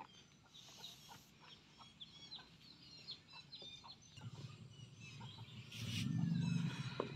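Birds chirping and clucking, with a low rumbling noise that comes in about four seconds in and grows louder toward the end.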